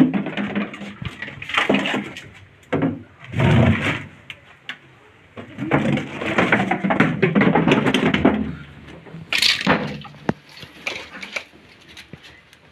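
Knocks, bumps and scraping of containers and clutter being moved and dragged across a concrete floor. Sudden thuds come at irregular intervals, with a longer stretch of scraping in the middle, then it quietens near the end.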